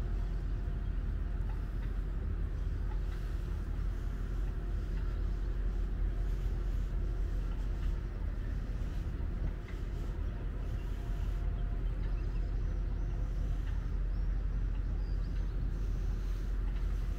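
Steady low engine rumble with a faint constant hum, unchanging throughout.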